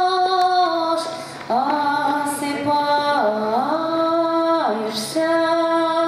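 A woman singing a Russian folk song unaccompanied, in long drawn-out notes: one held note ends about a second in, and after a short breath a new phrase starts with a slide up, then a step down in pitch about three seconds in and another long held note from about five seconds in.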